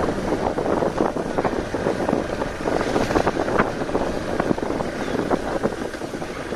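Hero Xpulse 200 4V's single-cylinder engine running as the motorcycle rides over a rutted dirt track. Frequent short knocks and rattles come from the bike over the bumps, with wind noise on the microphone.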